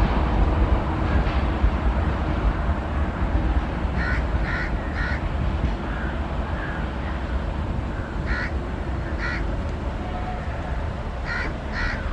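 Crows cawing in short harsh calls: three quick caws about four seconds in, two more spaced a second apart around eight to nine seconds, and a quick pair near the end, over a steady low rumble that slowly fades.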